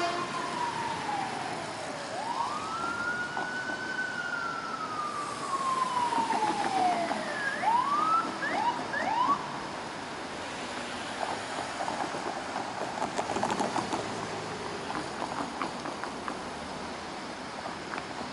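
Fire-rescue apparatus siren: one slow wail that falls, rises, then slides slowly down over a few seconds, followed by several quick rising whoops about eight to nine seconds in. After that only the rumble of the vehicles and traffic remains.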